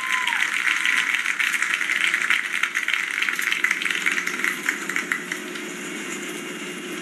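Stadium crowd applauding, a dense patter of clapping that thins out and dies away about five seconds in, heard through a computer speaker.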